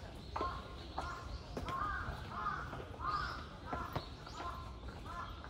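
Birds calling: a run of repeated calls, about two a second, with short higher chirps above them.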